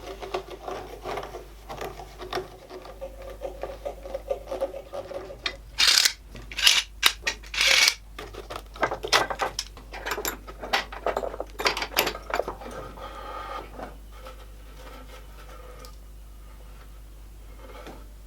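Bar clamps being set over a glued-up wooden board: a run of knocks and clattering of clamps against wood, loudest partway through, dying down to a quieter stretch near the end.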